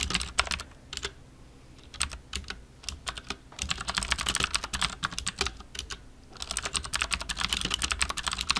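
Typing on a computer keyboard: rapid keystroke clicks, a few short scattered bursts at first, then two long fast runs with a brief pause between them.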